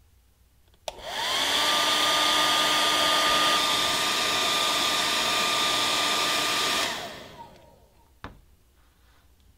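Hand-held hair dryer switched on with a click, its motor whine rising and then holding steady over a loud rush of air for about six seconds while it warms the Teflon base, then switched off and winding down. A single knock follows shortly after.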